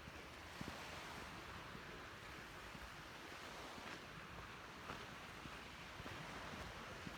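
Steady wash of sea waves with some wind, a few faint ticks over it.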